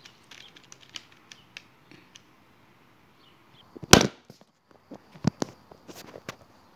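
Scattered light clicks and knocks, with one loud, sharp knock about four seconds in and a quicker run of knocks after it.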